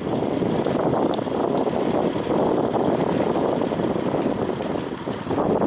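Steady rushing noise of wind and choppy sea water, with no distinct engine or horn sound.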